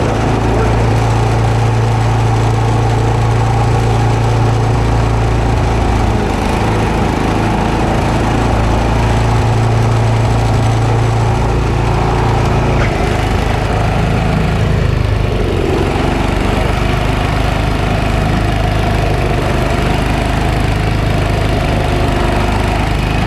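Snowblower's small gasoline engine running steadily, its note shifting a couple of times.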